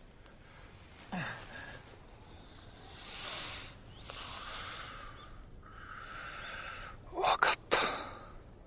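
A man weeping: ragged, gasping sobs and shaky breaths. A sharp gasp comes about a second in, and a cluster of loud, choking sobs comes near the end.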